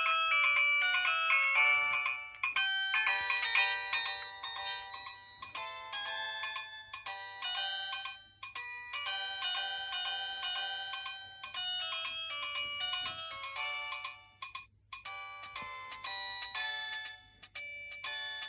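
Preloaded ringtone melodies playing through a Huawei G6153W phone's small speaker: bright, chiming synthesized notes with no bass, broken by short pauses about eight and a half and fifteen seconds in.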